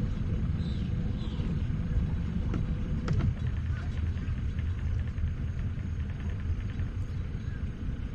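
Boat outboard motor running slowly at low throttle, a steady low rumble, with a few faint high chirps in the first second and a half.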